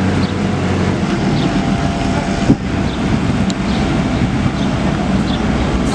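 A large engine runs steadily under a dense mechanical noise, typical of road-works machinery. A single sharp knock comes about two and a half seconds in.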